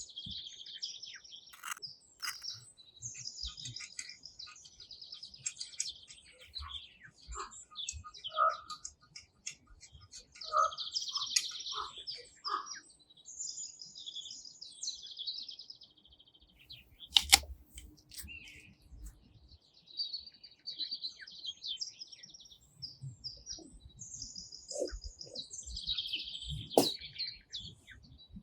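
Songbirds chirping and singing in repeated short high phrases, with a few sharp clicks or knocks, the loudest about halfway through.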